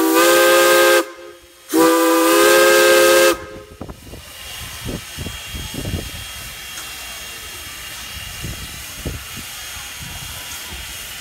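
Steam whistle of Strasburg Rail Road locomotive No. 89 blown twice, a short blast then a longer one, each a chord of several notes. After the second blast the locomotive hisses steam steadily, with a few soft thumps.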